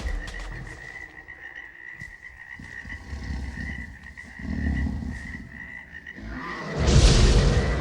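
Jungle-ambience sound effect: a frog chorus croaking on a steady, pulsing high note, with heavy low thuds of giant dinosaur footsteps twice in the middle. A loud rushing burst, the loudest sound, rises about six and a half seconds in.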